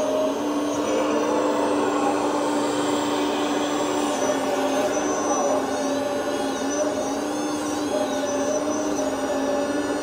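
Remote-control hydraulic excavator running, its Servonaut SMB sound module playing a steady simulated diesel engine drone through the model's speaker. From about four to eight seconds in, a high whine rises and falls in pitch as the boom and stick move under hydraulic power.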